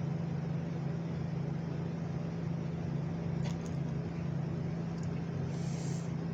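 Steady low machine hum in the room, with a faint click about three and a half seconds in and a brief soft hiss near the end.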